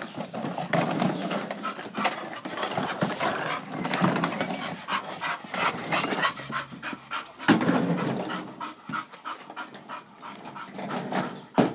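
English bull terrier panting rapidly, with a couple of sharp knocks, one about halfway through and one at the end.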